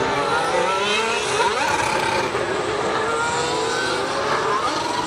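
Several 2015 Formula One cars, with 1.6-litre turbocharged V6 hybrid engines, running past in a group. Their overlapping engine notes keep rising and falling in pitch through gear changes, and one climbs sharply about a second and a half in.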